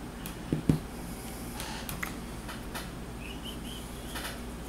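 Two short knocks about half a second in, then faint clicks and rustling of small RC car parts and tools being handled on a wooden table.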